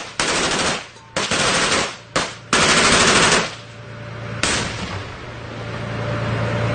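Bursts of automatic gunfire: four bursts of under a second each in the first three and a half seconds, then a single sharp shot about four and a half seconds in that echoes away. An armored vehicle's engine runs low underneath, growing louder near the end.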